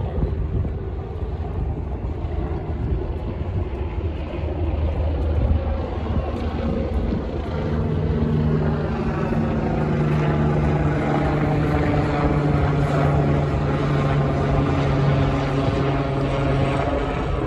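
Helicopter flying overhead. Its rotor and engine sound swells about halfway through and holds steady as a loud hum, over a low rumble.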